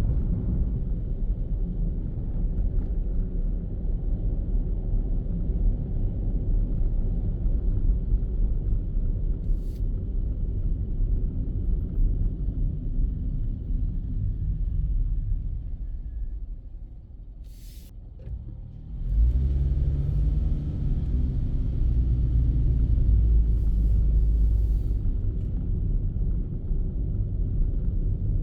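Car driving through city streets: a steady low rumble of engine and road noise. It sinks to a much lower level around sixteen to nineteen seconds in, then comes back louder.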